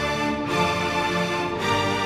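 Orchestral music from sampled virtual instruments, strings with brass, playing sustained chords that change at about half a second in and again near the end.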